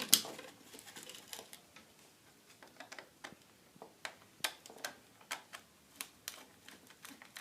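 Sharp clicks and taps, about one a second, from hands working wire ends and a switch terminal while connecting a light switch to the common.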